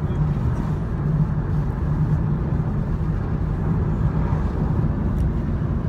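Moving car's road and engine noise heard inside the cabin: a steady low rumble with an even hum underneath.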